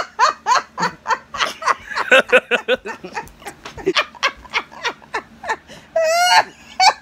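A woman laughing hard in quick repeated bursts, with a high squealing laugh near the end.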